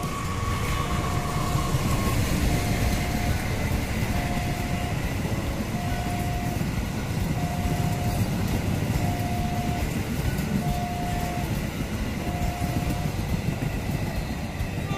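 Diesel-hauled passenger train passing close by: a steady low rumble of the locomotive and coaches rolling along the track. A short tone repeats about every second and a half over it.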